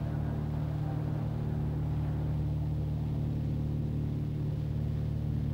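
A steady, low engine drone with a deep hum, holding one pitch without rising or falling.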